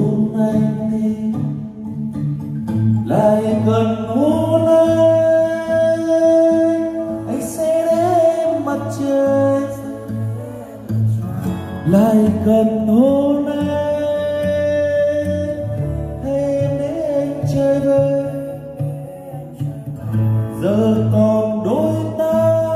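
A man singing live into a handheld wireless microphone over backing music, amplified through Yamaha DXR15 powered PA speakers during a sound check of the newly installed system. He sings long held notes, each sliding up into pitch.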